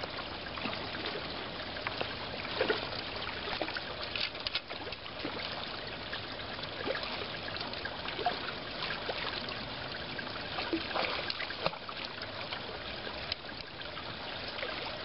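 Creek water running steadily over a riffle, with small irregular splashes here and there.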